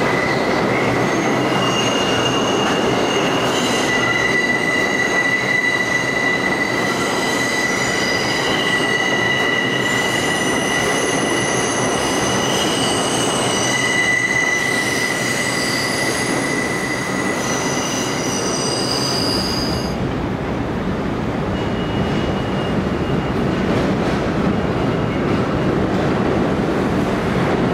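R142A subway train moving through the station with its wheels squealing: several steady high tones over a loud rumble. About two thirds of the way in the squeal stops abruptly, leaving only the rumble of a train in a tunnel.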